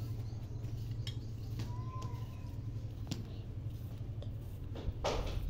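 Small kitchen knife slicing through an onion held in the hand, giving scattered faint crisp clicks over a steady low rumble, with a louder rustling burst near the end.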